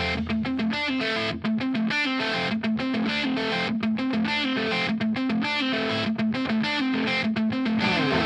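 Background rock music: a distorted electric guitar plays a choppy riff on its own, without the bass of the rest of the song.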